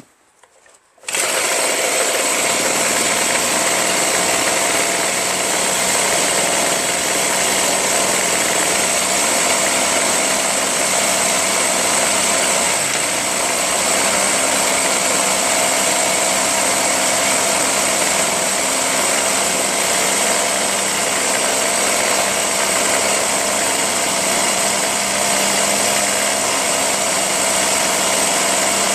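Ryobi backpack leaf blower's 25.4cc two-stroke engine running steadily. It comes in abruptly about a second in.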